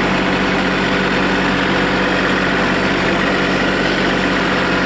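Tractor engine running at a steady speed, with no change in pitch.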